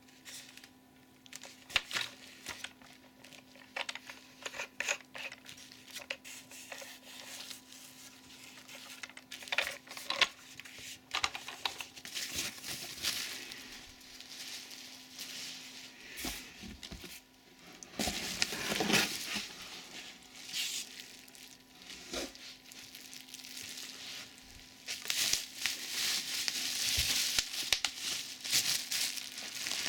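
Plastic packaging and bubble wrap crinkling and rustling while vacuum cleaner parts are unpacked and handled, with scattered clicks and knocks of plastic parts. The crinkling becomes denser and louder near the end.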